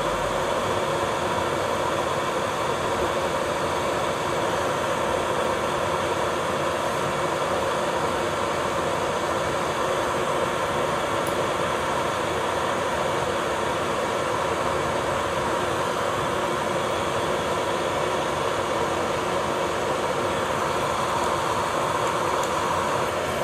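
Electric nail drill (e-file) running steadily, its thin pointed bit working along the cuticle line of a natural nail to lift the cuticle. A steady whir with a few fixed tones that holds at an even level throughout.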